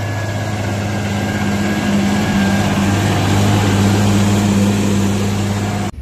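Farm tractor's diesel engine running steadily while pulling a plough through the soil, a low, even drone that grows a little louder about two seconds in.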